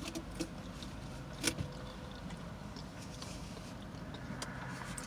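Steady low hum of a car's interior, with a few short clicks and smacks of eating, the loudest about a second and a half in.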